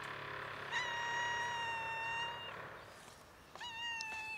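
A hungry stray cat meowing twice: a long, steady meow about a second in, then a shorter one near the end.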